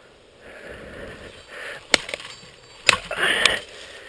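Machete chopping through brush: two sharp strikes about a second apart, the second followed by a short burst of noise.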